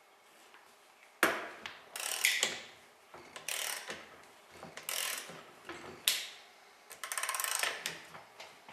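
Socket ratchet wrench working a rust-seized Allis-Chalmers wheel-eccentric pin back and forth: a sharp click about a second in, then short bursts of ratchet clicking, and a fast run of clicks near the end. The pin is still stiff with rust and corrosion and is being worked loose.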